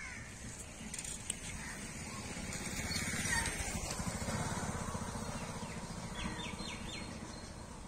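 A motorcycle passing by with its engine running, growing louder to a peak about three to four seconds in and then fading away. A few short bird chirps near the end.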